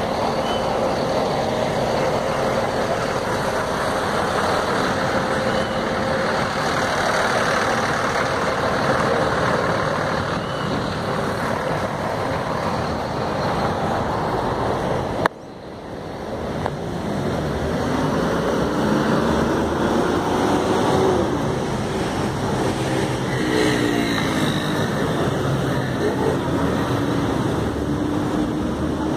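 Dense city street traffic: buses and cars running and idling close by in a jam. About halfway through the sound drops out suddenly and builds back up. Later an engine note rises and falls as vehicles move off.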